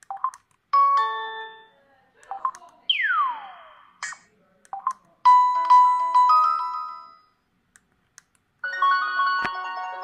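LG KS360 phone's loudspeaker playing its built-in preset alert tones one after another, each cut short for the next. There are brief chimes, a long downward-sliding sweep about three seconds in, a ringing pattern of held notes around the middle, and a busier melody starting near the end.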